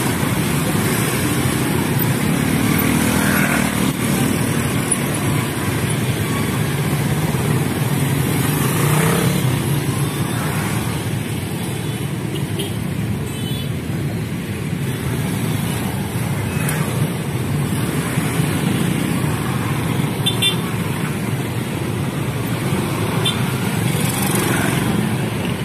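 Motorcycle engines idling amid steady road-traffic noise, with a few short horn toots.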